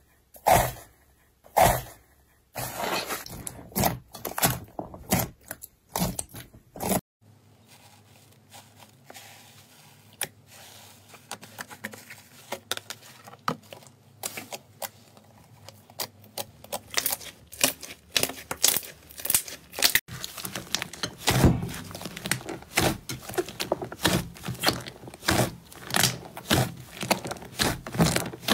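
Slime being pressed and kneaded by hand, giving a string of sharp pops and squelches as trapped air bursts. The pops come as a few loud ones at the start, then a dense crackle, a quieter stretch in the middle, and steady popping two or three times a second near the end.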